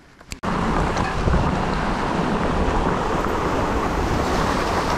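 Wind buffeting an action camera's microphone: a loud, steady rumbling rush that starts suddenly about half a second in, after a near-quiet moment.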